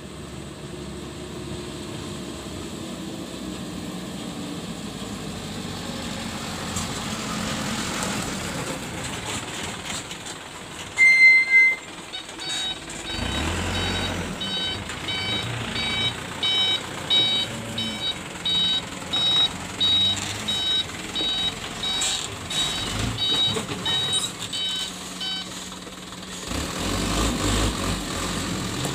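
Diesel engine of a light dump truck running and pulling closer, with its reversing alarm beeping about once a second for some thirteen seconds while it backs up. A single loud, short high beep comes just before the alarm starts. Near the end the engine grows louder as the truck passes close by.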